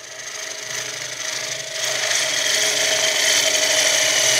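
Bowl gouge cutting a large wooden bowl spinning on a wood lathe: a steady shearing hiss with the lathe's hum beneath, growing louder over the first two seconds as the cut deepens, then cut off abruptly.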